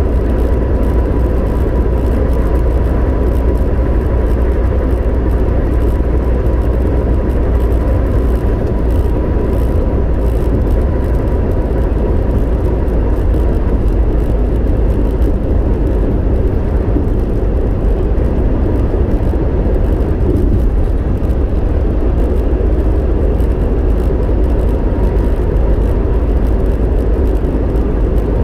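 Steady engine and running rumble heard from inside the cabin of a kindergarten shuttle van, with a faint steady high whine over it.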